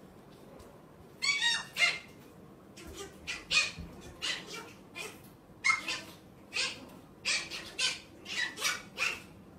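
A chihuahua giving a rapid run of short, high-pitched yaps and yelps. They start about a second in, with a longer yelp that bends in pitch, then come roughly twice a second.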